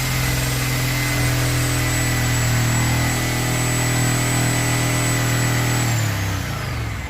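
Electric power saw running at a steady speed with a high whine while cutting out rotten plywood, then switched off about six seconds in and winding down.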